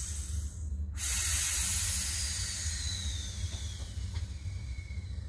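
Approaching MBC metre-gauge electric train: a high hiss of wheels on the rails sets in about a second in, and from about three seconds in a thin squeal slides down in pitch as it runs through the curve and points into the station.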